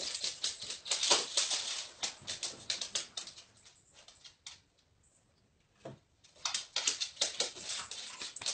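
A dog's claws clicking rapidly on a hard floor, in two runs of quick taps with a pause of about two seconds in the middle.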